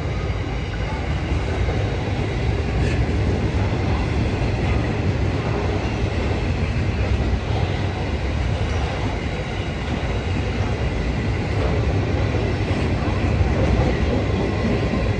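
Empty container flat wagons of a freight train rolling past, a steady rumble of steel wheels on the rails.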